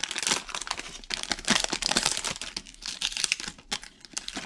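Plastic wrapper of a 2020 Score NFL trading card value pack being torn open and crinkled in the hands, a dense run of sharp crackles.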